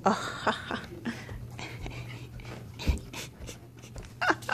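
A Chihuahua panting as it moves about, with knocks and rustling, the loudest a sharp bump at the very start.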